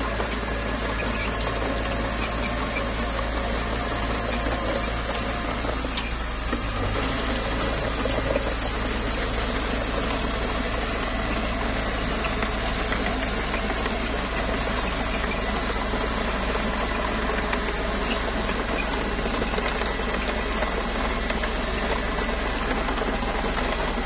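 Small bulldozer's engine running steadily under work.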